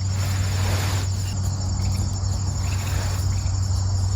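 Insects trilling steadily, over a steady low hum.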